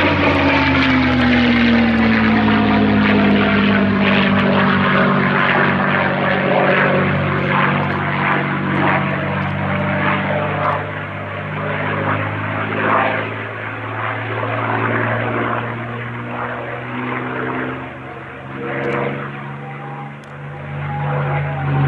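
Propeller aircraft engine running. Its pitch falls over the first few seconds, then holds fairly steady while the level dips and swells.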